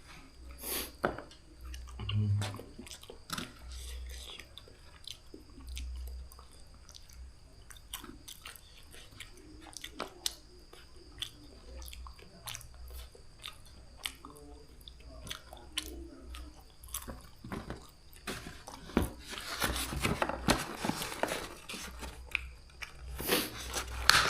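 A person eating noodles close to the microphone: chewing and biting in many small clicks. A denser noisy stretch comes about three-quarters of the way through.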